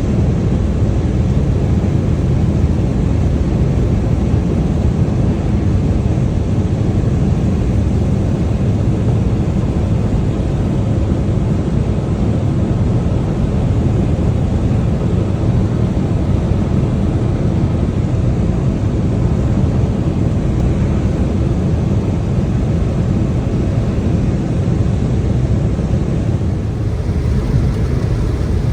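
Steady, low road and tyre noise of a car driving at motorway speed on a wet road in the rain.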